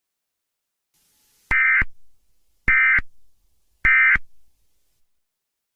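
Emergency Alert System end-of-message data tones: three short, identical bursts of digital signalling tones about a second apart, marking the end of the alert.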